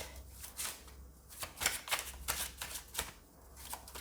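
A deck of tarot cards being shuffled by hand: a series of irregular soft card flicks and riffles.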